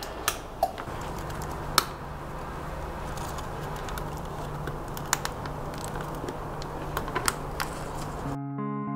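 Scattered small clicks and rustling of a flexible LED strip being handled and pressed around the inside of a plastic bucket, over a steady low hum. Guitar music cuts in near the end.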